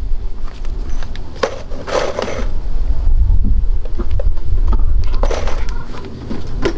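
Small metal pieces clinking together with a short bright ring, in two brief clusters about one and a half and five seconds in, over wind rumbling on the microphone.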